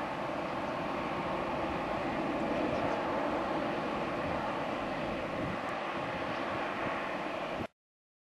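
Jet engines of an Airbus A319-111 (CFM56 turbofans) running steadily as the airliner moves along the runway. The sound cuts off suddenly near the end.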